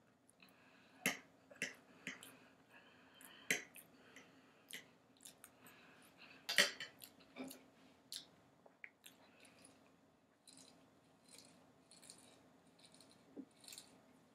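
Faint close-up eating sounds: chewing and mouth noises, with scattered sharp clicks and taps of cutlery and a soda can being handled, over a faint steady hum.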